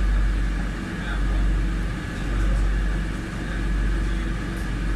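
Madrid Metro Line 5 train running through a tunnel, heard from inside the car: a steady low rumble of wheels and running gear that swells and eases.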